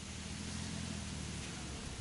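Steady hiss with a low engine hum that drops away near the end.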